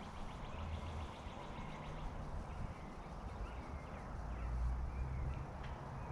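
Outdoor ambience of birds chirping and trilling in short calls, faint, over an uneven low rumble.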